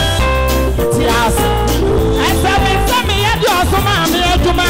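Live gospel music: a man sings into a microphone with a wavering, bending voice over a band playing sustained chords and a steady bass line.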